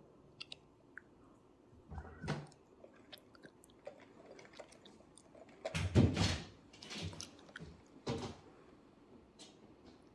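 Cat chattering at prey: short bouts of rapid teeth-clicking and chirps, the loudest about six seconds in.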